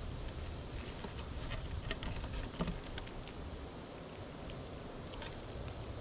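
Gray squirrel feeding in seed on a feeder table close to the microphone: a scatter of small sharp clicks and crunches as it picks through and cracks seeds, with one louder knock about two and a half seconds in, over a low steady background rumble.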